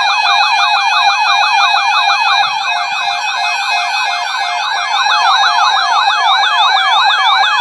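Electronic alert siren: a fast, repeating rising yelp, several sweeps a second over a steady tone, sounding continuously. It is the attention tone that opens an Emergency Alert System severe thunderstorm watch.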